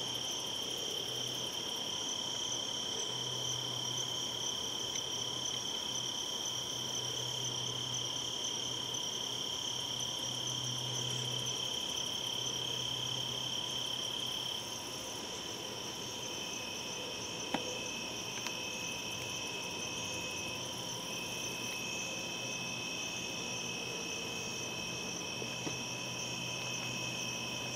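Crickets singing at night, several steady high trills at different pitches at once; one trill stops about halfway through and another, slightly lower, starts soon after. A faint low hum comes and goes underneath.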